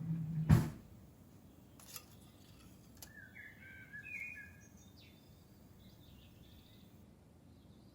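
Small birds chirping in short calls, loudest a few seconds in and fainter later. About half a second in there is one loud thump, the loudest sound, with a low hum just before it and a few faint clicks after.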